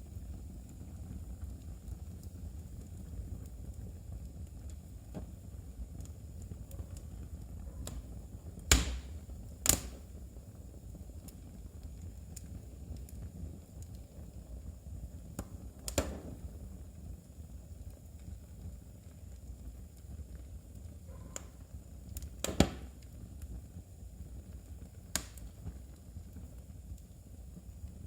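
Wood fire burning in a fireplace, with a low steady rumble and a handful of sharp crackling pops scattered through it, the loudest two close together near the middle.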